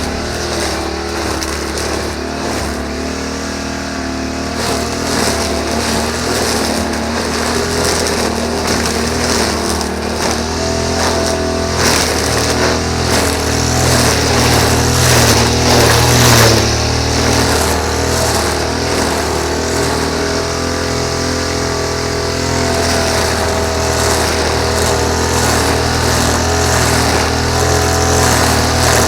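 Engine of a grass-cutting machine running steadily at working speed, growing a little louder about halfway through.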